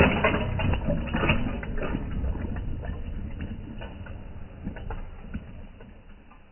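Mountain bike tyres rolling over loose dirt and grit, a dense crackling crunch that is loudest at first and fades as the bike moves away.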